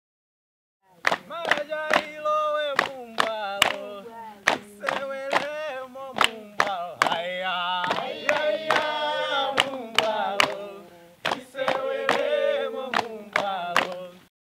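A group of voices singing a song together, with hand clapping keeping a steady beat of about two claps a second. It starts about a second in and cuts off shortly before the end.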